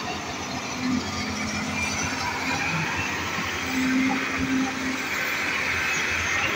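Hyundai Robex crawler excavator running close by, its diesel engine and hydraulics working steadily as the boom swings and the bucket works a heap of mud. The noise swells briefly about a second in and again around four seconds in.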